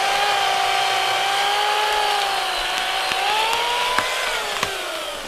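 Corded electric chainsaw, run through an inverter from a solar-charged battery bank, cutting into a yellow birch: a steady high-pitched motor whine that rises slightly about three and a half seconds in, then drops in pitch near the end. A few sharp clicks sound over it.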